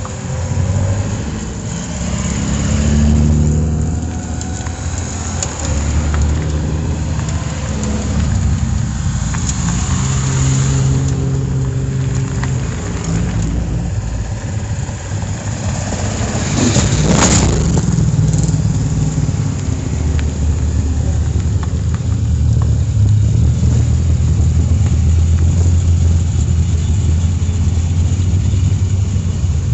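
Several race car engines running in a holding queue, with low engine notes that rise and fall as throttles are blipped. A brief loud burst of noise comes a little past halfway.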